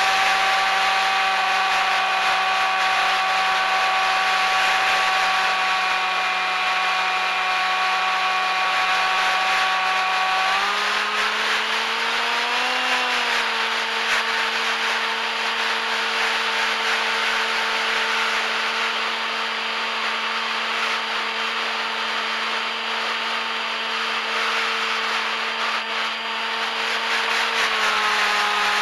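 Electric motor and propeller of a radio-controlled aircraft whining steadily under a rush of wind, heard from the onboard camera. The pitch steps up about ten seconds in as the throttle opens, swells briefly soon after, and drops back near the end.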